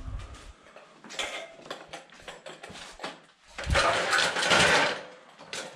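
Building work on temporary supports for attic stairs: scattered clicks and knocks from handling tools and profiles. About three and a half seconds in comes a low thump, followed by a louder noisy burst lasting about a second and a half.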